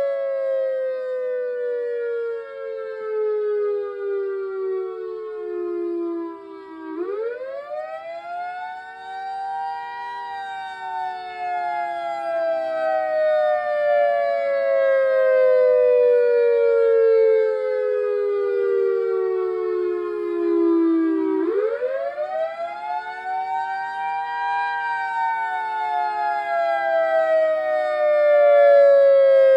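EOWS 612 outdoor warning siren sounding its alternating wail tone. A two-note chord slides slowly down in pitch, then climbs quickly over about three seconds, once about seven seconds in and again about twenty-one seconds in, before sliding slowly down again.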